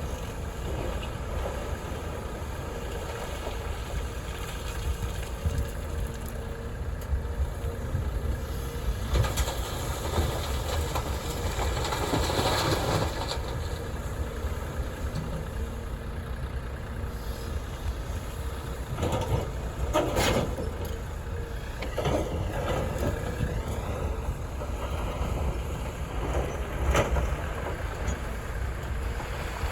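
Diesel engine and hydraulics of a CAT 330F excavator running steadily while loading aggregate into dump trucks. There is a swell of rushing noise partway through, a couple of sharp clanks later on, and a brief wavering whine near the end.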